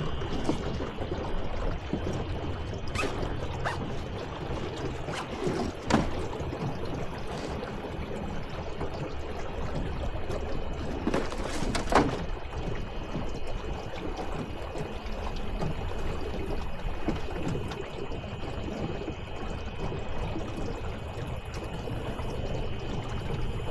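Water splashing and trickling against a small boat's hull, with a faint steady whine and two sharp knocks, about six seconds apart.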